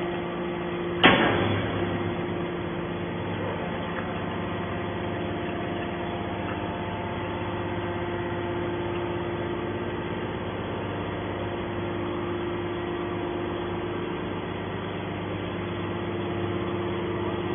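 TCM hydraulic scrap metal baler running with a steady hum from its hydraulic power unit while the ram pushes a compressed bale of scrap out of the chamber. A single sharp bang about a second in is the loudest sound.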